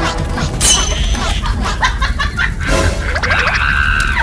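Background music with short comic sound effects laid over it, including a falling high-pitched glide about half a second in.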